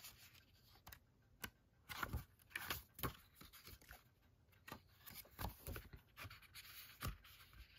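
Pages of a printed booklet being turned and handled by hand: quiet, brief paper rustles and flicks at irregular intervals.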